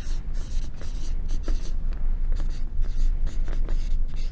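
Felt-tip marker writing on flip-chart paper: a quick run of short scratchy strokes as words are written, over a low steady hum.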